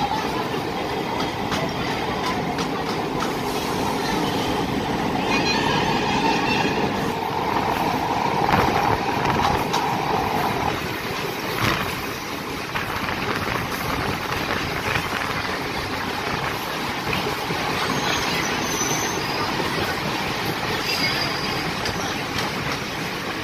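Chennai MRTS electric local train running on elevated track, heard from the coach doorway: steady noise of wheels on rails and rushing air. A whine holds for a few seconds near the middle and stops suddenly, with a few sharp clicks from the wheels.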